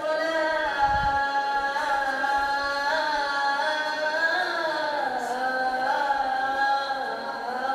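A boy's voice calling the azaan, the Islamic call to prayer, into a microphone: one long sung phrase held throughout, its pitch turning slowly in melodic ornaments, with a clear step about three seconds in.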